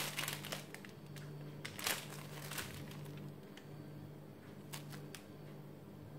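Plastic piping bag crinkling faintly as it is squeezed to pipe cream flowers, the clearest rustle about two seconds in, with a few soft clicks later on.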